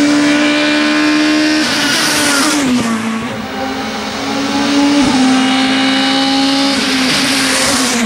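Renault Laguna BTCC race car's naturally aspirated 2-litre four-cylinder engine running at high revs under full throttle. Its pitch holds steady, glides down about two seconds in, climbs back, and drops again near the end.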